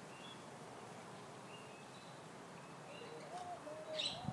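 Faint birds chirping in the background, with a drawn-out, wavering vocal sound starting about three seconds in, and a short sharp sound near the end.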